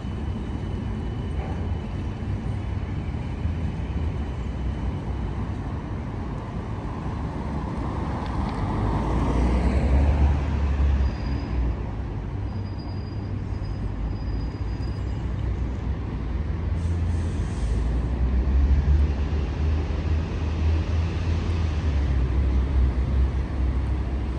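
City street traffic noise, with a road vehicle swelling past about nine to ten seconds in. A low rumble comes and goes several times.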